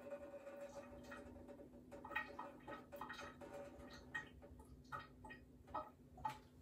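Faint, irregular drips and small clicks of salt water running out of the nostril into the sink during a neti pot rinse.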